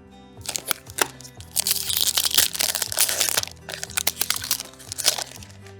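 Foil Pokémon booster pack wrapper being crinkled and torn open: sharp crackles, then a dense rustle of about two seconds in the middle, then more crackles. Background music plays underneath.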